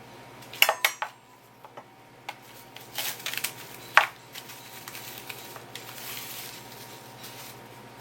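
Dishes and kitchen utensils clinking and knocking on a kitchen counter: a quick cluster of clicks near the start, a short rattle about three seconds in and a sharp knock at four seconds, over a steady low hum.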